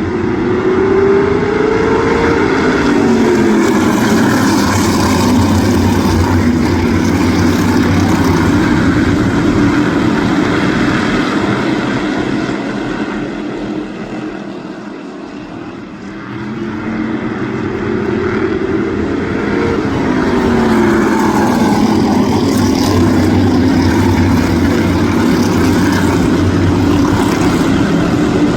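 A field of crate modified race cars' V8 engines running at speed on a short oval, the pack passing close twice with the engine pitch dropping as it goes by, fading as the cars go round the far side about halfway through, then coming back.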